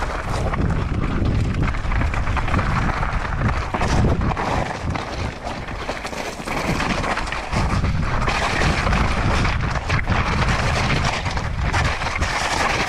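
Wind buffeting the microphone over the rattle, knocks and tyre noise of a mountain bike riding fast down a rough natural trail.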